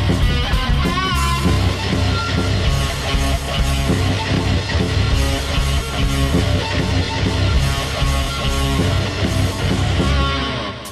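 Rock music with electric guitar, steady and loud, fading down near the end.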